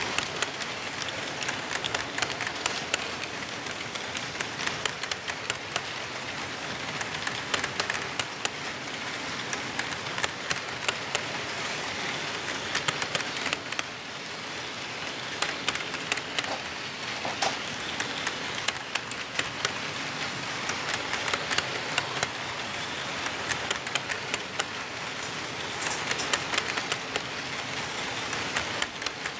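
Model train running along layout track, led by a ScaleTrains GE AC4400CW model locomotive: a steady rushing hiss with many rapid irregular clicks as the wheels roll over the rail joints.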